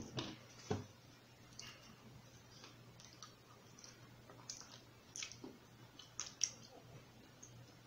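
A person eating into a close microphone: quiet chewing and mouth clicks, with a knock of fork, plate or bottle at the very start and another just under a second in.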